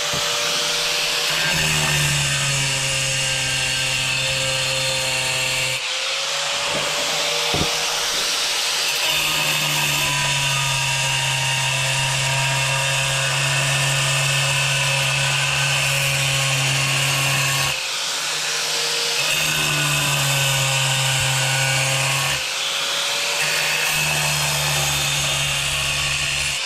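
Angle grinder grinding a round hole into a hard ceramic tile, the blade worked round and round the circle with a steady motor whine over grinding noise. The grinding note drops away briefly about three times, roughly 6, 18 and 22 seconds in.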